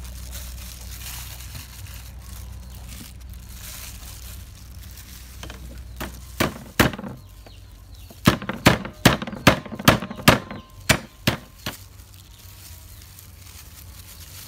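Kitchen knife chopping green onions on a wooden cutting board: about ten sharp strikes in quick succession, roughly three a second, after a couple of single knocks.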